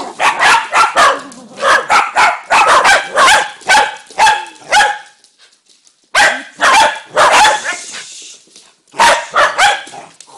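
Small dogs barking in quick, sharp bursts, several barks a second, with a brief lull about five seconds in before the barking starts up again.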